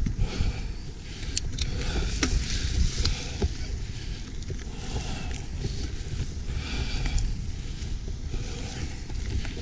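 Mountain bike riding over a leaf-covered dirt singletrack: a steady low rumble of tyres on the trail, with scattered sharp clicks and rattles from the bike.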